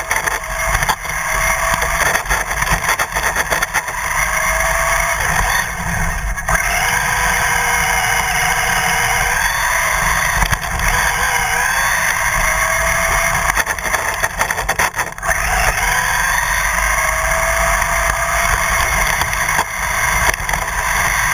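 Radio-controlled car driven at speed on tarmac, heard from on board: rough tyre and road rumble with the motor's whine rising and falling in pitch as it speeds up and slows several times.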